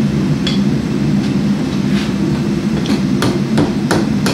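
Hand hammer striking a red-hot mild-steel bar on an anvil: a few light blows at first, then a quicker run of sharper strikes, about three a second, in the last second or so. A steady low roar runs underneath.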